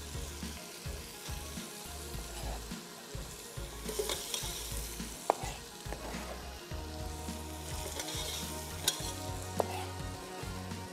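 Onions with garlic-ginger paste and green chili paste sizzling in hot oil while being stirred, with a few sharp clicks of the utensil against the pan. This is the bhuna stage, frying the masala well before the tomatoes are added.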